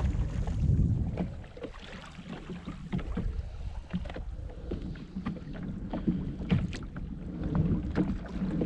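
Water lapping and splashing against a kayak's hull as the kayak moves and turns, with a low wind rumble on the microphone and scattered small knocks.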